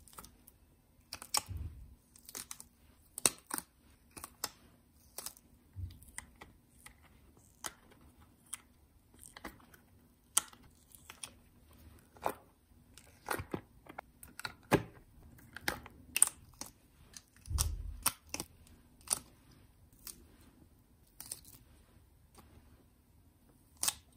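Cured resin pieces being demolded from flexible silicone molds: irregular small clicks, snaps and peeling sounds as the silicone is bent and pulled away, with a few dull thumps from pieces and molds being handled on the table.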